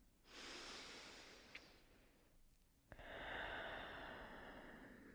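A person breathing slowly and deeply, one long soft breath after another with a short pause between, as a cued breath in a relaxed stretching pose.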